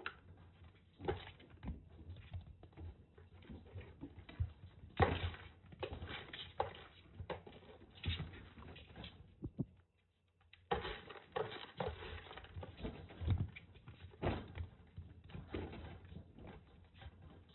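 Kittens romping in a wire pen: irregular light thumps, taps and scrabbling of paws and claws on the floor mat and against the wire panels. The sound cuts out briefly about halfway through.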